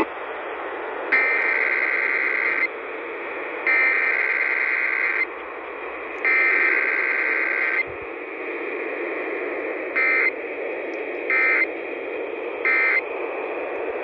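Emergency Alert System SAME data bursts of a required weekly test, received on 1020 AM through the Eton FR-600 radio's speaker. Three buzzy digital header bursts of about a second and a half each come first, with no attention tone after them. Three short end-of-message bursts follow near the end, all over steady AM static hiss.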